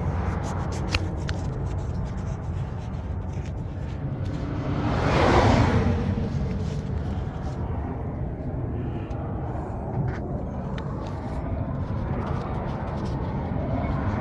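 Steady low road-traffic rumble, with a vehicle passing by about five seconds in, swelling and fading away; a few light clicks of hand work on the hose clamp sound now and then.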